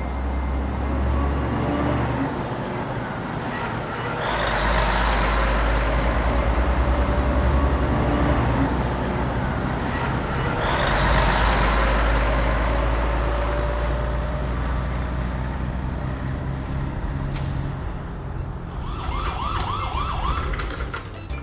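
A heavy truck engine rumbling, with two long hissing surges that start about four and eleven seconds in.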